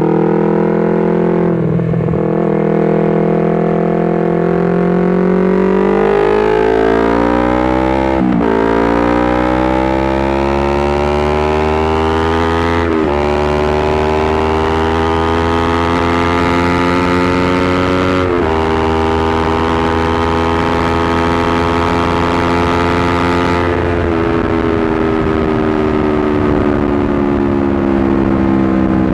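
Honda CBR250RR motorcycle engine accelerating through the gears: the pitch climbs steadily, drops briefly at each of four upshifts and climbs again, then falls gently as the throttle is rolled off for about the last five seconds.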